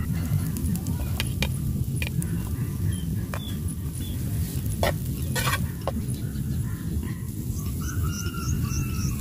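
Metal spatula stirring shrimp, egg and mushrooms in a steel pan over a wood fire, with scattered sharp clicks of the spatula striking the pan over a steady low rumble. A bird chirps repeatedly near the end.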